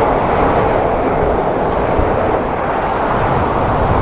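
Jet airliner climbing out after takeoff, its engines making a steady, broad rush with a low rumble beneath.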